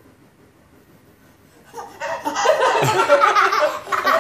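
Young children laughing loudly and shrilly, breaking out about two seconds in after a quiet pause.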